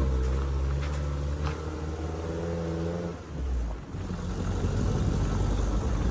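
Truck engine running at a steady pitch, its hum cutting off about three seconds in and giving way to a rough, even low rush.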